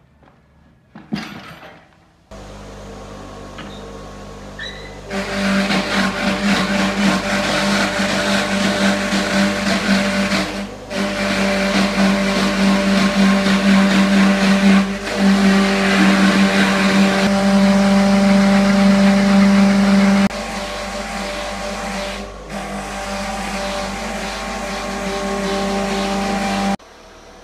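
A workshop machine running: a steady motor hum with a harsh hiss above it, cut off and restarted suddenly several times.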